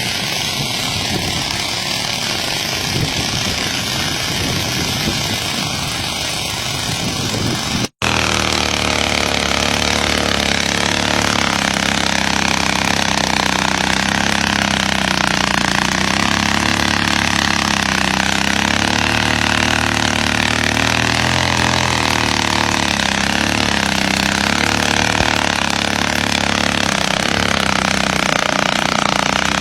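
Motorcycle engine running steadily at low revs, its pitch wavering a little. Before a sudden cut about eight seconds in, there is a rougher, noisier stretch.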